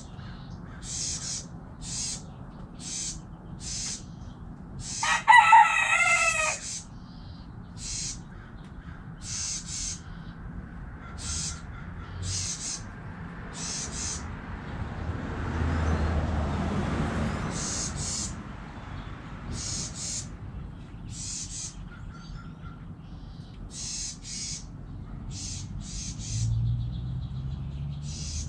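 A backyard rooster crows once, about five seconds in, the loudest sound. A short high-pitched chirp repeats about once a second throughout, and a soft rushing sound swells and fades midway.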